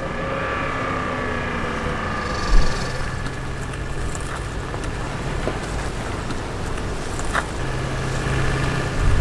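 A Toyota Land Cruiser 200 Series SUV's engine running, its pitch falling over the first two seconds, with a low hum that comes and goes and a sharp thump about two and a half seconds in.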